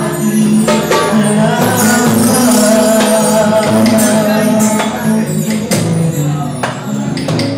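Live band playing: a male voice singing held notes over guitar and hand drums with sharp percussion strikes.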